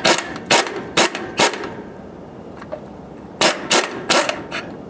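Cordless impact wrench hammering in short trigger bursts: four in the first second and a half, then four more after a pause of about two seconds. It is easing a nut off the bolt connected to a screw compressor's slide valve, feathered gently because snapping that bolt would break the slide valve.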